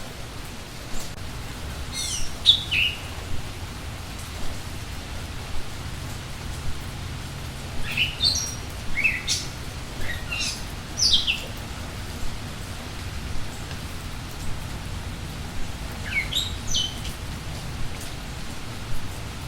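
Steady rain falling, with songbirds chirping over it in three short bursts of quick, falling notes.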